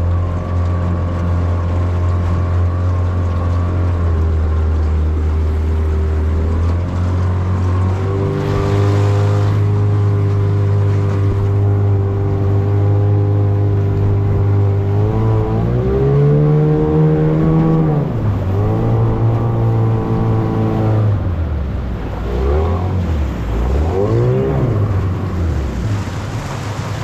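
Outboard motor on a small aluminium boat running steadily, then revving higher about halfway through and easing back, with a few quick dips and rises in engine speed near the end.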